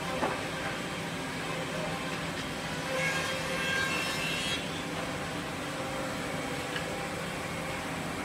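Woodmaster WM-D200CNC two-head CNC tenoning machine running steadily. A higher whine comes in for a second or so about three seconds in as its cutters mill tenons on the wood pieces.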